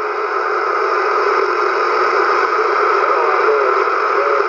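Uniden Bearcat 980 CB radio receiving on channel 31 with no one transmitting nearby: steady, loud AM band static with faint wavering tones drifting through it, the sound of weak skip conditions.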